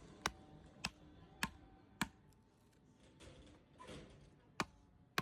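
A hand tool striking wood in a steady series of sharp blows, four about 0.6 seconds apart, then a pause and two more near the end.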